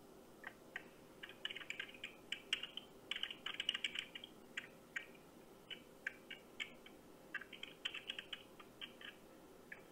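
Computer keyboard typing heard over a phone on speaker: quick, irregular runs of key clicks with short pauses, thickest in the middle.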